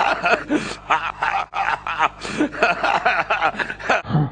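A man chuckling and snickering in quick, repeated bursts, cut off abruptly near the end.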